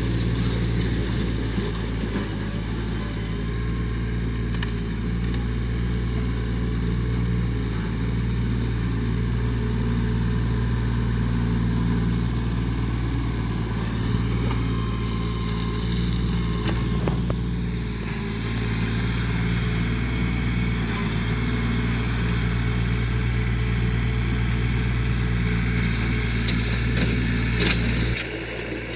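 Mahindra 1526 compact tractor's three-cylinder diesel engine running steadily while the tractor drives back and forth grading dirt with its box blade and loader. The level drops briefly near the end.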